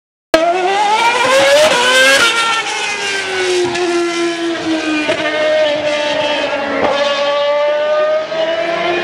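Renault R28 Formula One car's 2.4-litre V8 running at high revs as it passes. It starts suddenly, climbs in pitch, drops sharply about two seconds in, then runs on as the car pulls away, with gear changes near the middle and later.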